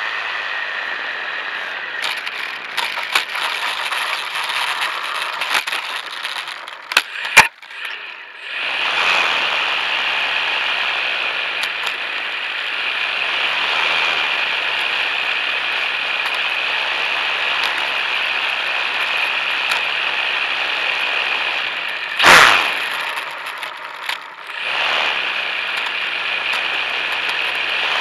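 A HobbyZone Super Cub RC plane's electric motor and propeller heard from its onboard camera during a landing on pavement. A steady whine gives way to a run of clicking and rattling as the plane touches down, with a sharp crack about seven seconds in, and then a steady high-pitched hum while it sits on the ground, broken by a brief loud burst a little past twenty seconds in. The pilots say the propeller was finished off by this landing.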